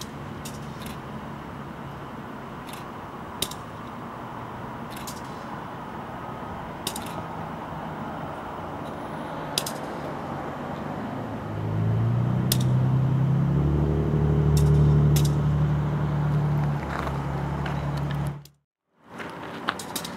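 Diesel front-end loader working at a coal pad, its engine running steadily with scattered sharp clanks. About twelve seconds in the engine revs up loudly and holds for several seconds before the sound cuts off abruptly.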